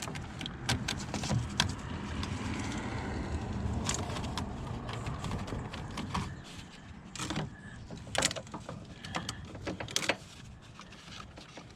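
Hand tools working on a spark plug deep in a truck's engine bay: scattered metal clicks and knocks of a socket and extension, over rustling handling noise that fades after the first few seconds.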